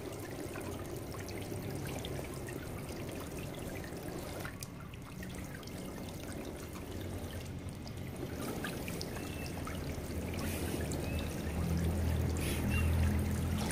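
Small water jets spraying up from the rim of an inflatable splash-pad sprinkler mat, fed by a garden hose, splashing and trickling steadily back onto the mat. A low rumble joins near the end.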